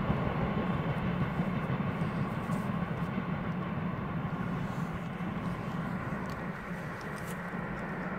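Steam-hauled special train with locomotives 35 1097 and 03 2155 rolling away into the distance, a steady low rumble that slowly fades.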